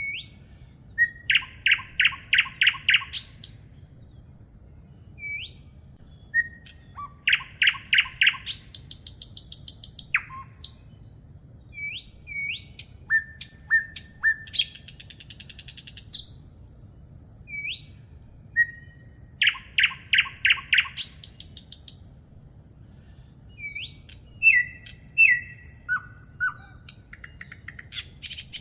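Songbirds singing in repeated phrases every few seconds: short rising whistled notes, then rapid trills of about six notes a second, with a thinner, faster high trill in between. A faint steady low hum runs underneath.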